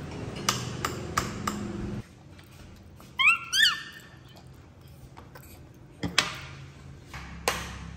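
Baby macaque giving two short calls that rise in pitch, about three seconds in, with scattered sharp clicks and taps before and after.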